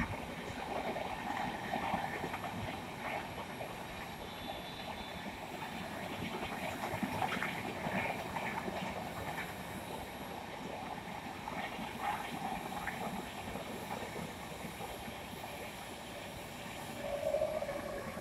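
Rajdhani Express coaches rolling past at speed: a steady rumble and hiss of steel wheels on rails with scattered clicks over rail joints. Near the end the trailing WAP-7 electric locomotive goes by with a louder tone that falls slightly in pitch.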